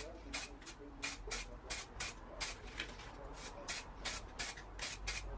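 Aerosol spray-paint can fired in rapid short puffs of hiss, about four a second, laying red paint onto a masked part.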